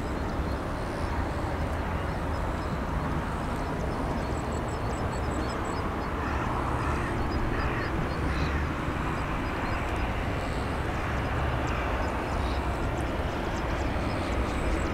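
Distant Boeing 737-500's CFM56 jet engines running at low power as the airliner taxis and lines up on the runway: a steady low rumble. A faint high rhythmic chirping comes and goes over it.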